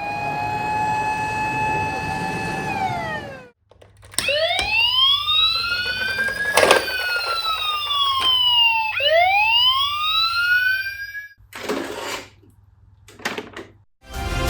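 Fire engine siren: a steady tone held for about three seconds that glides down and stops. After a short gap it winds up, falls and winds up again in slow wails, with a few sharp clicks. Short broken bursts of sound come near the end.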